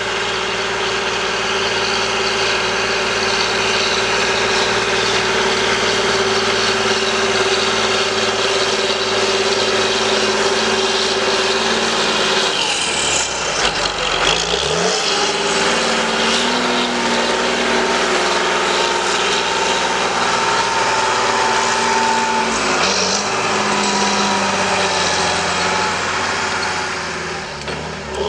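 John Deere 8120 tractor's six-cylinder diesel engine running steadily under load while plowing. About halfway through, the engine note drops and climbs back up, then settles into a steady run at a different pitch.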